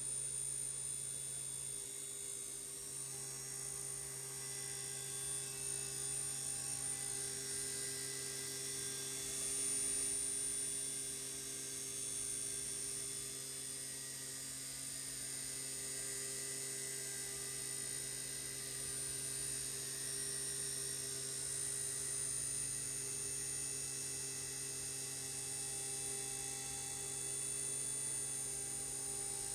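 CNC mill's half-inch end mill taking a finish pass around the outside of a 6061 aluminum part, spindle at 8,000 RPM: a steady machine hum with a light hiss of cutting, swelling a little about ten seconds in.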